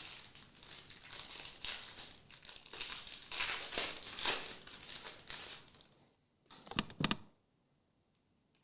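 Foil trading-card pack wrapper crinkling and rustling as it is handled, followed by two sharp taps about seven seconds in.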